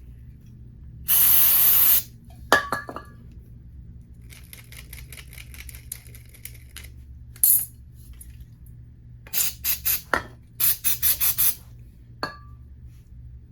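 Short hissing blasts of spray cleaning a small carburetor inlet screen: one long blast about a second in, then quick rapid-fire puffs later on. Small metal parts clink and tick on the bench between the blasts.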